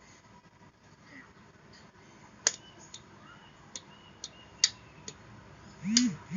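A run of irregular sharp clicks, about seven over three and a half seconds, then two short voiced sounds right at the end.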